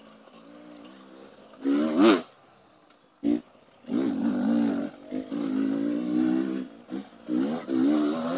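Dirt bike engine revving in surges as the throttle is opened and closed, with a sharp rev that climbs and falls about two seconds in and brief lulls where it drops away.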